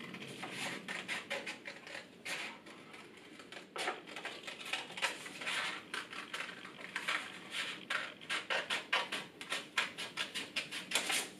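Scissors snipping through folded, double-layer paper, a long run of quick snips as the curved heart shape is cut out.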